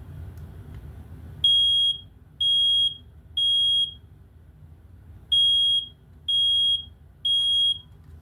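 First Alert SA67B smoke alarm sounding on test: two sets of three high-pitched beeps, each about half a second long, in the temporal-three alarm pattern, starting about a second and a half in.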